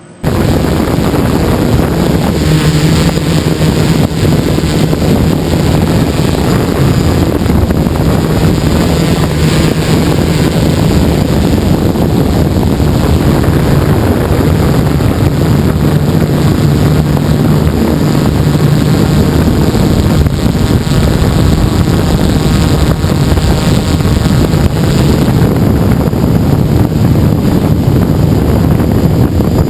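A DJI Flame Wheel F550 hexacopter's brushless motors and propellers, heard up close from a GoPro mounted on the frame: a loud steady buzz whose low hum wavers in pitch as the throttle changes, mixed with wind on the microphone.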